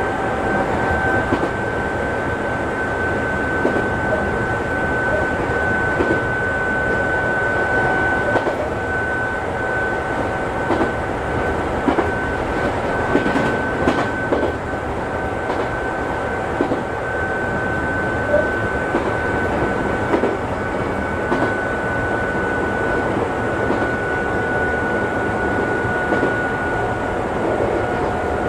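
Chichibu Railway local electric train running along the line, heard from inside the rear cab: a steady rumble with a constant high whine from the running gear, and wheels knocking over rail joints every so often.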